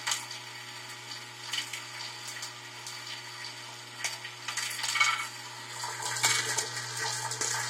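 Vibratory bowl feeder buzzing with a steady low hum while wooden Scrabble tiles rattle and click against each other and the bowl as they shuffle along its spiral track. The clatter grows denser and louder over the last couple of seconds.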